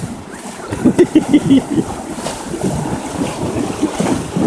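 Swift river water churning as horses wade and splash through the current, with wind buffeting the microphone. There is a short run of loud, choppy splashes about a second in.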